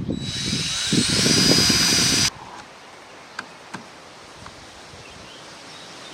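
Power drill pre-drilling a screw hole, running for about two seconds with its motor whine rising, then stopping suddenly. A couple of light clicks follow.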